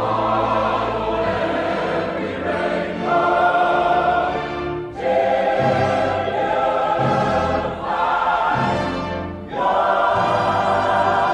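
Choral background music: a choir holding long sustained chords, with the chord changing every two to three seconds.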